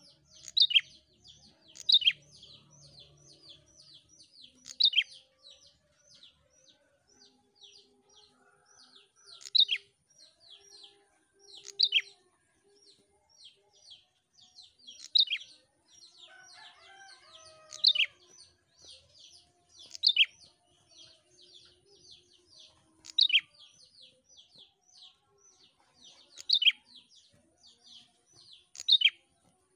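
Prenjak (prinia) singing: a fast, steady run of short high chirps, several a second, broken every two to three seconds by a louder, sharper note. A fainter, lower wavering call sounds in the background about halfway through.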